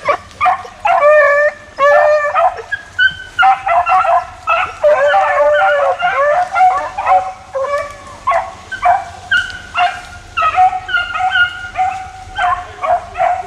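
Several hunting hounds baying and yelping over one another, loud and close, as they run on a deer's trail.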